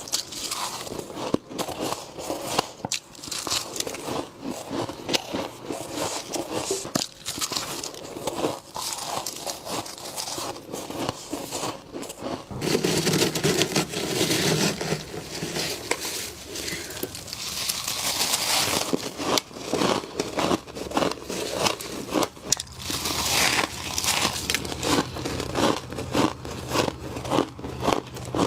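Close crunching and crackling of freezer frost being bitten and chewed: dense, irregular crisp crunches, louder and fuller about halfway through.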